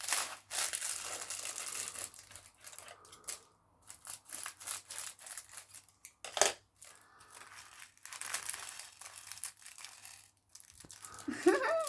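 Bags of Lego DOTS pieces being torn open and crinkled by hand, in irregular rustling bursts, with one sharp click about six and a half seconds in.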